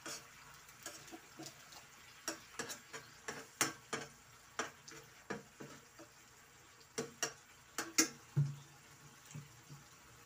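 Slotted spatula scraping and knocking against a nonstick frying pan while stirring sardines in a simmering sauce. The clicks and scrapes are quick and irregular, the loudest about eight seconds in, over a faint steady sizzle.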